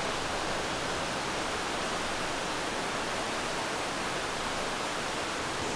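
Waterfall pouring into a rock pool, making a steady, unbroken rush of water; its flow is swollen after rain.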